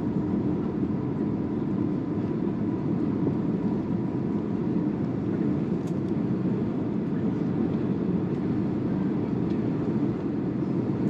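Steady low rumble of an Airbus A321neo heard from inside the passenger cabin, engine and airframe noise holding even with no sudden changes.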